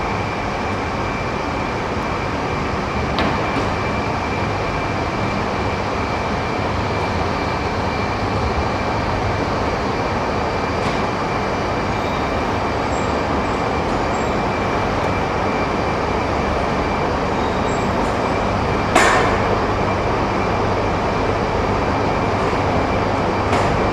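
Steady running noise inside a 200 Series Shinkansen passenger car, an even rumble and hiss with a faint high whine through it. A single sharp knock comes about three quarters of the way through.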